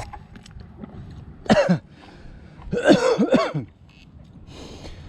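A man coughing in two bouts, a short cough and then a longer, harsher run of coughs, from water gone down the wrong pipe.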